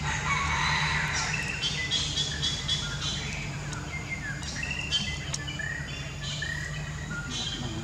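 Many short bird chirps and calls over a steady low hum.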